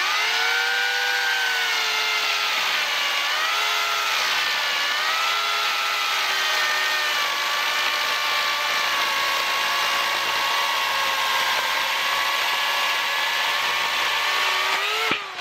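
Corded electric Oregon self-sharpening chainsaw running under load as it cuts down through a thick black locust log. Its motor whine sags in pitch as the chain bites in, wavers, then holds steady through the cut and climbs briefly near the end as the load comes off.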